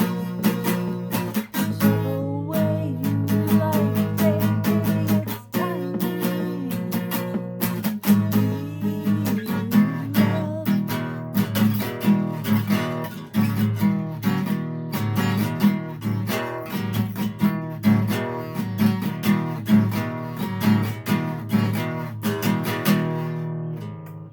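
Acoustic guitar strummed in a steady rhythm, with a voice singing over it in places: a self-composed song played by an amateur guitarist.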